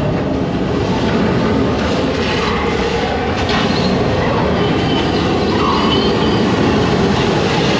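Loud, steady rush of wind and water spray from a flight-simulator ride's soundtrack as the flight skims low over water, with a low rumble underneath.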